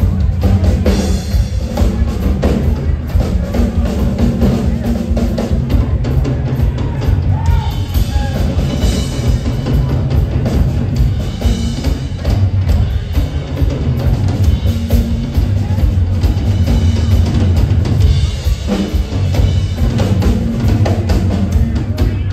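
Two drummers playing together on two full rock drum kits in a busy live drum duet: bass drums, snare, toms and cymbals, with the cymbals washing up several times.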